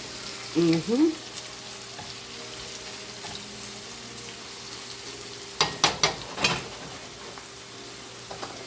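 Diced carrots, celery, onions and garlic sizzling steadily as they fry in oil in a pan, with a quick run of knocks from stirring a little past the middle.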